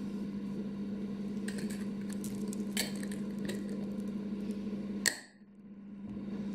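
A few light clicks and taps as a spoon and a clip-top glass jar are handled on a table, over a steady low hum. The sound cuts off abruptly a little after five seconds in.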